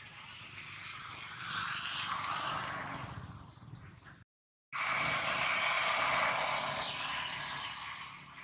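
A steady rushing noise that swells, drops out completely for about half a second, then returns louder and slowly fades.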